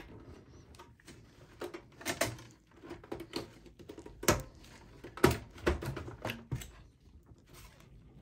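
Plastic front bezel of a Dell XPS 8910 desktop being prised off its metal chassis: a string of irregular sharp clicks and knocks as its clips let go, the loudest coming a little past the middle.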